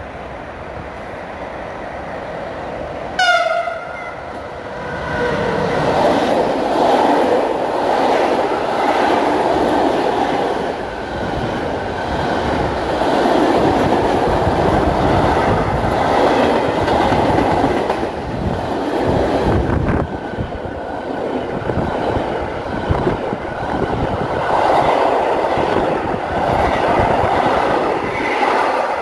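Electric locomotive's horn gives one short blast about three seconds in, slightly falling in pitch. Then a container freight train runs past close by, its wagons rolling loudly over the rails, the noise swelling and easing as the wagons go by.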